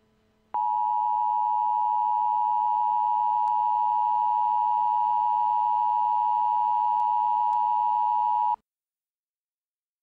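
NOAA Weather Radio warning alarm tone: one steady, loud, high tone that starts about half a second in and cuts off sharply after about eight seconds, the signal that a weather warning is about to be read.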